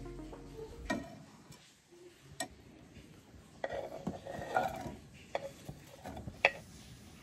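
Kitchen knife working in a glass jar and on a wooden chopping board: scattered light clinks and short scrapes as solid fat is scooped out and chopped onion is pushed off the board into a frying pan, with one sharp click near the end the loudest.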